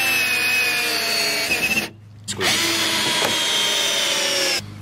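A handheld drill-driver runs under load into a carpet-covered wooden block, in two long runs split by a short pause about two seconds in. In each run the motor's whine sinks slightly in pitch as the bit bites.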